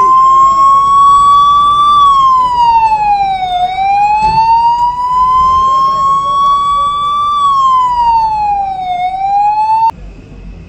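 A siren wailing in a slow rise and fall, going up over a few seconds and dropping back over about a second and a half, about two cycles, then cutting off abruptly near the end.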